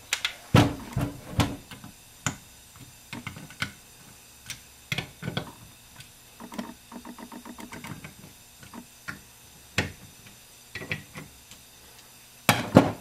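Scattered metallic clicks and light knocks of bolts and a hand driver being worked on a Ford C6 transmission's aluminium valve body as its bolts are run down, with a short run of rapid ticks about six and a half seconds in.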